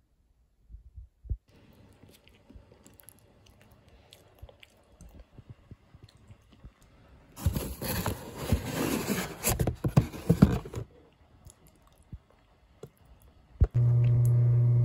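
Cardboard product boxes handled and rubbed against each other for about three seconds, a scraping, crinkling noise with small knocks. Near the end a steady low hum starts.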